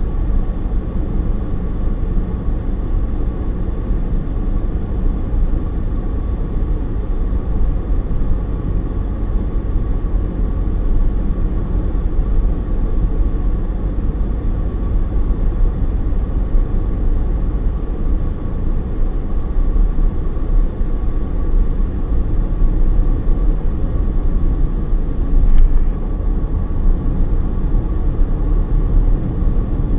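Steady low rumble of a car driving, heard from inside the cabin: tyre and road noise with engine, and a faint steady whine above it.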